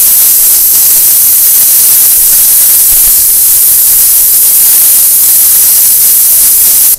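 High-pressure water jet from a DEKTON DK-HPW3500W industrial pressure washer's lance nozzle, a loud steady hiss as it blasts old hardened cement off a concrete slab.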